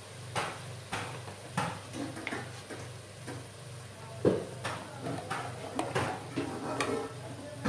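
Spoon and kitchen containers clinking and knocking about ten times, the sharpest knock about four seconds in. Under them, vegetables sizzle faintly in oil in an aluminium pressure cooker, over a steady low hum.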